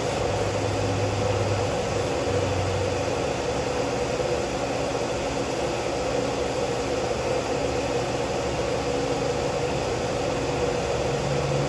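Haas CNC vertical machining center cutting under program control: the spindle turns an end mill along a shallow rectangular pass while flood coolant sprays over the tool and workpiece. Steady machine noise with a constant hum.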